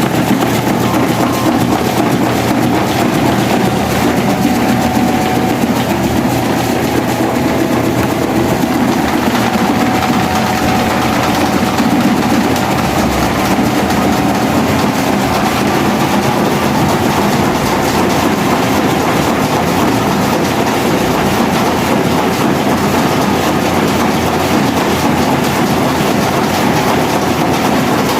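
Electric fans running at speed, a Mondial and a Britânia Turbo, one with a broken red propeller: a loud, steady whir with some rattle.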